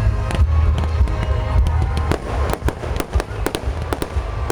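Fireworks exploding. From about two seconds in comes a dense crackle of rapid, sharp pops.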